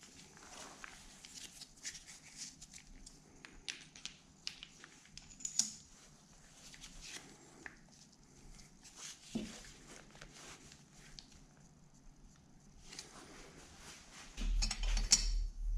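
Faint scattered clicks and rustles of small parts being handled. Shortly before the end, a louder low, pulsing rumble starts.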